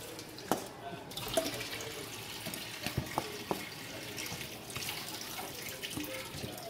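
Water running from a kitchen tap into a stainless-steel sink, with a few sharp clinks of a metal spoon against a stainless-steel bowl.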